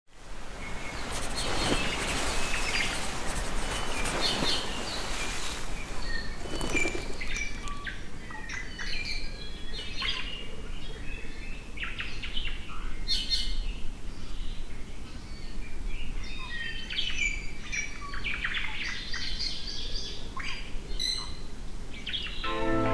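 Several birds chirping and calling, with many short, varied calls overlapping. Music comes in at the very end.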